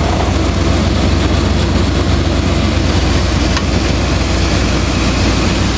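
Lifted Chevrolet Suburban's engine idling steadily, a low rumble.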